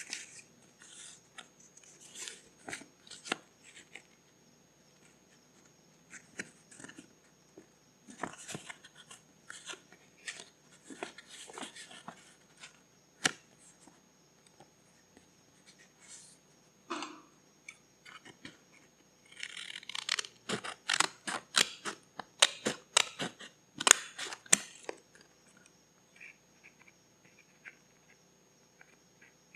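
Paper being handled and worked for a journal: scattered crisp rustles and taps, then a busier run of quick sharp strokes from about twenty to twenty-five seconds in.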